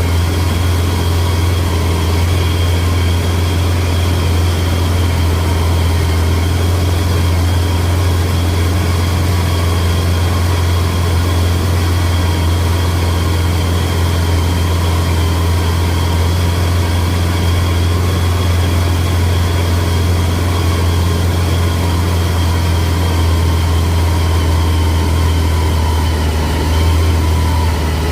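Engine of rice-harvesting machinery running steadily at constant speed: a deep hum with a steady high whine over it, the pitch easing down slightly near the end.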